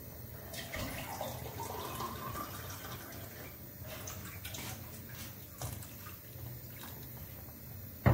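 Watery grated vegetable ragu simmering in a stainless steel pan, with wet bubbling and scattered small pops. A wooden spoon stirs near the end, and there is one sharp knock just after 8 seconds.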